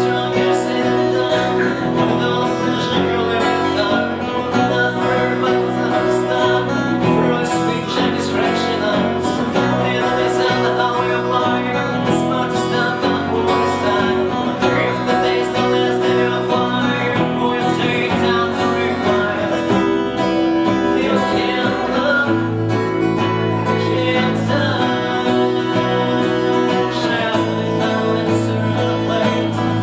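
A band of three acoustic guitars and a bass guitar playing a song together, the guitars strummed and picked over a steady bass line.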